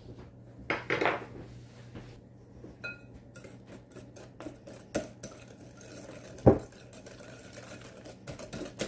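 Wire whisk beating flour into an egg, sugar and butter batter in a glass bowl, its wires clicking and tapping against the glass. One sharp knock about six and a half seconds in is the loudest sound, and the clicks come faster near the end.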